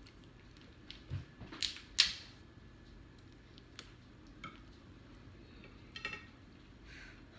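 Scattered cracks and clicks of crab and lobster shell being broken open by hand, the sharpest about two seconds in.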